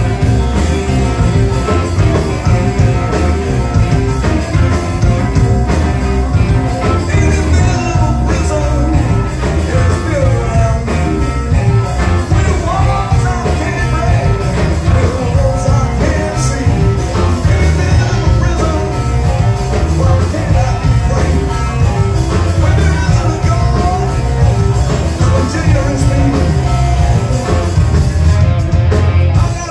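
Live rock band playing with a lead vocal: electric guitar, bass guitar, drum kit and keyboards, heard through a club PA.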